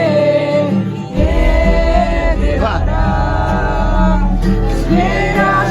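Background music with singing over it; a heavy bass line comes in about a second in.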